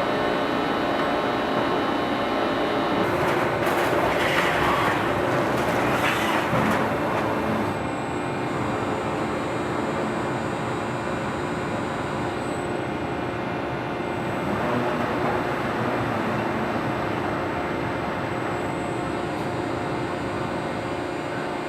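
Automated furnace wrapper manufacturing machine running steadily, a dense mechanical noise with several held tones. A louder, noisier stretch comes about three to seven seconds in.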